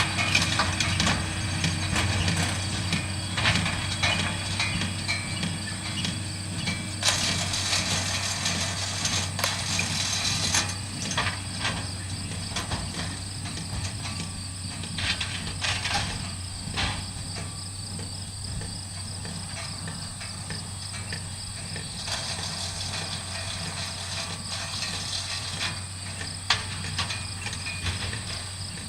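Tractor and hay baler running: a steady engine hum with irregular mechanical clatter and clicks, busiest in the first ten seconds and slowly fading. Insects chirp steadily in a high, constant tone throughout.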